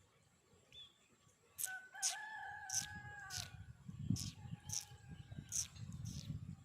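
A bird's long, drawn-out call of steady pitch begins about a second and a half in and lasts about two seconds, followed by a fainter held call. Short high chirps repeat throughout, over a low rumbling noise in the second half.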